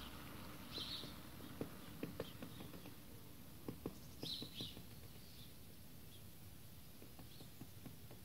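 Dendrocopos woodpecker pecking at wood while feeding: faint, irregular single knocks, clustered in the first half, not a drum roll. A few short high bird chirps sound about a second in and again about four seconds in.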